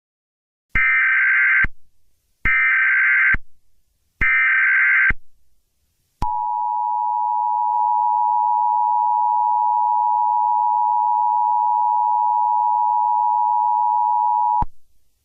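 Emergency Alert System tones: three short bursts of the SAME header's data screech, about a second each and evenly spaced, then the two-tone attention signal held steady for about eight seconds before cutting off sharply.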